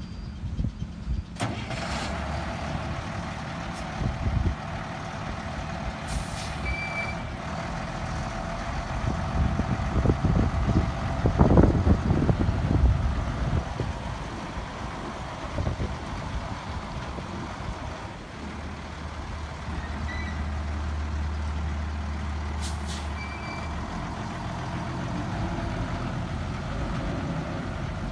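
A 1992 International fuel truck's engine running as the truck drives slowly around, with two short air-brake hisses, about six seconds in and again near twenty-three seconds. Wind rumbles on the microphone.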